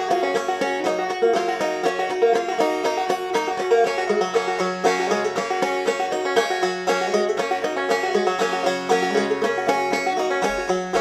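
Background banjo music: a fast-picked bluegrass tune, a quick steady run of plucked notes.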